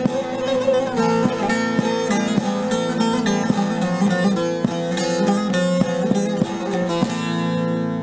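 Instrumental music on a plucked string instrument: quick picked notes over steady held lower tones.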